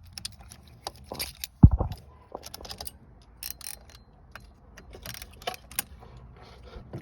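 Small metal parts of a truck's steering-wheel and horn assembly being handled and fitted, giving scattered clicks and light rattles, with one loud low thump about a second and a half in.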